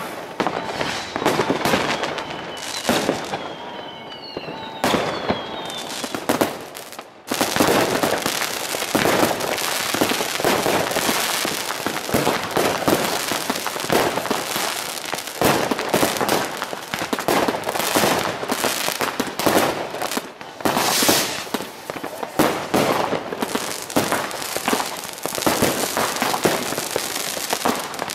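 New Year's fireworks going off all around: a dense, continuous run of bangs and crackling from rockets and firecrackers. A couple of whistles fall in pitch a few seconds in.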